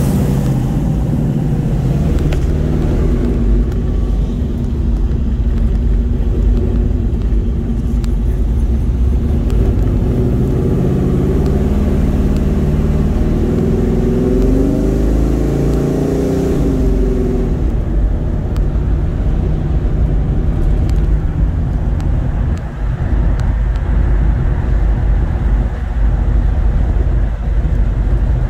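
Classic car engine running under way, heard from inside the car with the window open, with steady low drive and road noise. About two-thirds of the way through, the engine note climbs as it accelerates, then drops away.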